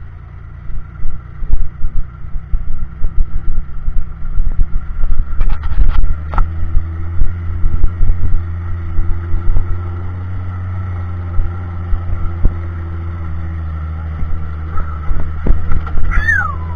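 1976 Jeep CJ5's engine and drivetrain rumbling inside the open cab as it climbs a rutted dirt trail. Frequent knocks and jolts as it bounces over the ruts, settling to a steadier drone about ten seconds in.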